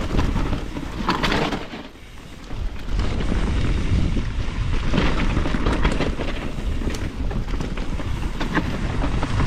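Mountain bike riding down singletrack, with wind buffeting the action camera's microphone over the tyres on dirt and the knocks and rattles of the bike, briefly quieter about two seconds in.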